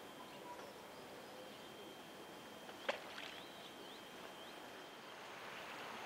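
Faint steady outdoor ambience by a small river, with a thin steady high tone, broken about three seconds in by a single sharp, brief sound and a few faint high chirps.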